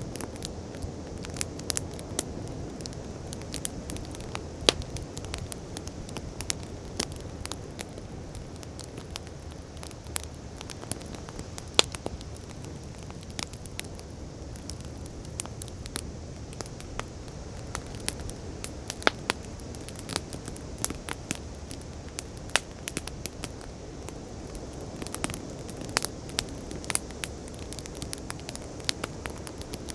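Wood fire crackling, with many irregular sharp pops over a steady low rush of sea waves.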